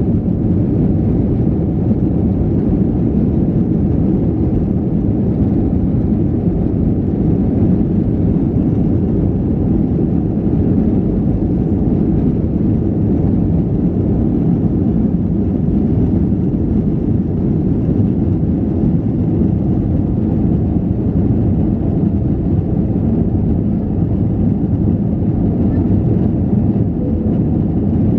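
Steady cabin noise inside an Airbus A321-211 airliner in flight after take-off: the low, even rumble of its CFM56 engines and the airflow around the fuselage, heard from a rear window seat.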